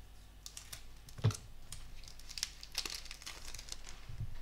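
Foil Pokémon booster pack wrapper crinkling and crackling as it is opened and the cards are taken out, with one knock about a second in.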